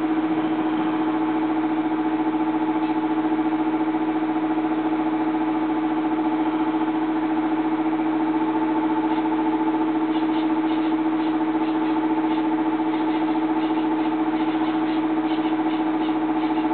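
Aoyue hot-air rework station blowing steadily while reflowing solder balls: an even hum with a whine and a hiss of air, with a few faint ticks in the second half.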